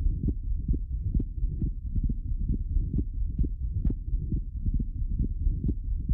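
Recorded heart sounds through a stethoscope: a regular run of beats with a widely split second heart sound and a flow murmur across the pulmonic valve, the auscultation picture of an atrial septal defect.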